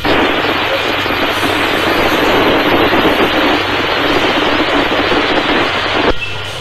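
Static hiss over a radio channel: a loud rush of noise that cuts in suddenly and cuts off about six seconds later.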